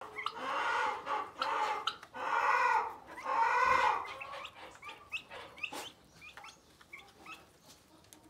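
Four-week-old Bronze turkey poults and fowl calling: four loud, drawn-out calls in the first half, then scattered short, high, rising peeps.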